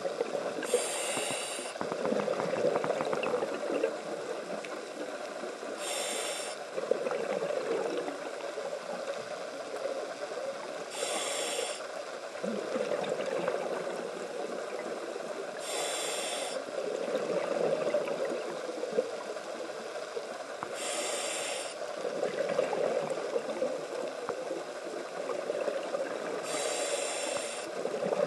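Scuba diver breathing through a regulator, heard underwater: a short hiss of inhalation about every five seconds, six in all, each followed by the rushing, bubbling noise of the exhaled breath.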